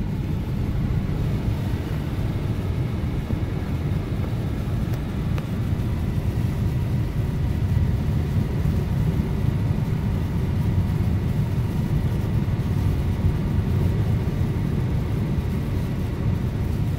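Car driving steadily on a snowy road: a continuous low rumble of engine and tyre noise.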